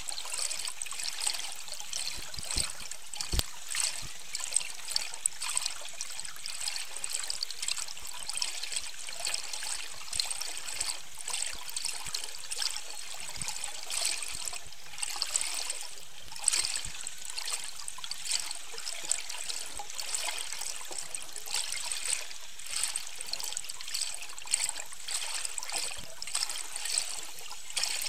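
Underwater water noise picked up by a boat-mounted underwater camera: a steady hiss with dense crackling and scattered clicks, and a few low thumps about two to four seconds in.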